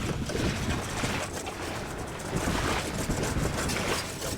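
Hand scrapers scraping barnacles and green algae off the bottom of a dinghy, in irregular rasping strokes.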